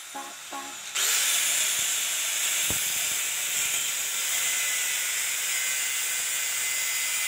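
A corded handheld power tool starts about a second in and runs steadily with a high-pitched whir.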